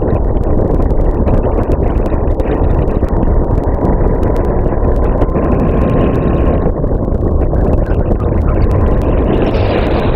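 Racing kart engine running at speed, heard from the onboard camera on the kart. The sound thins out about six seconds in and builds again near the end.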